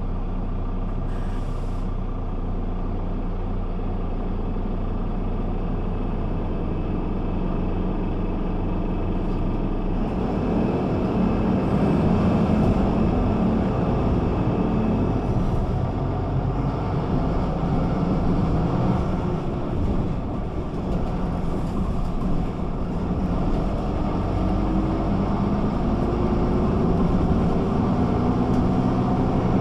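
Güleryüz Cobra GD 272 city bus's diesel engine idling steadily, then pulling away about ten seconds in: the engine grows louder and its note rises in pitch as the bus accelerates.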